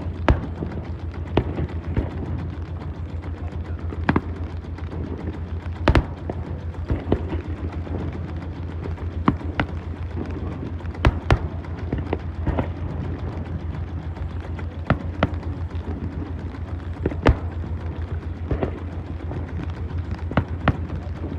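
Fireworks going off: sharp bangs at irregular intervals, roughly one every second or two, some louder than others, over a steady low rumble.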